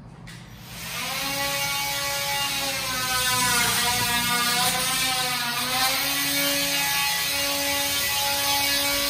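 Cordless drill-driver motor whining as it works at a wall switch box, its pitch dipping under load midway, then running in short trigger pulses near the end.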